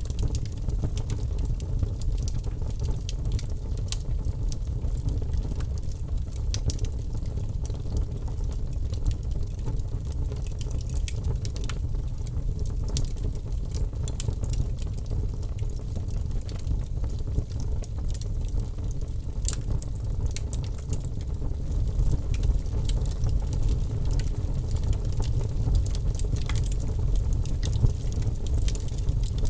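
Wood fire crackling: a steady low rumble of burning with frequent small, sharp pops and snaps.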